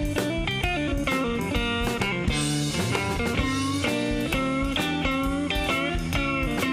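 Live blues band in an instrumental break: an electric guitar plays a lead solo of quick single-note runs, some notes bent, over a drum kit, with a cymbal wash about a third of the way in.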